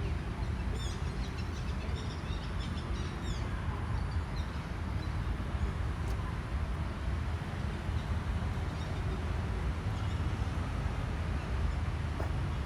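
Steady low rumble of city traffic, with small birds chirping a few times in the first few seconds.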